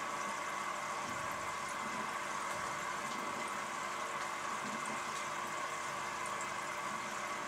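Aquarium water running: a steady, even hiss of circulating water with a faint steady hum beneath it.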